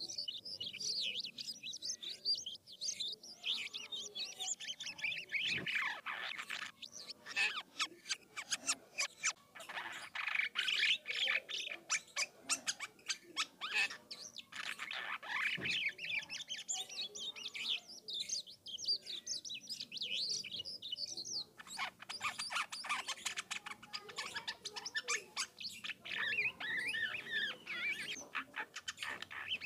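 Jalak kapas starling singing vigorously in a long rolling, varied stream of rapid chirps, whistles and clicking notes.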